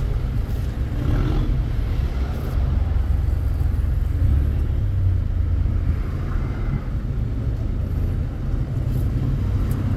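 Toyota Wigo's three-cylinder petrol engine idling with a steady low rumble. It is misfiring on cylinder 3, which the scan tool traces to a fault in the number 3 injector circuit.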